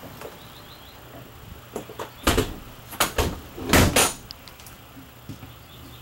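A cluster of loud knocks and thumps, the strongest about two seconds in and again near four seconds, inside a travel trailer.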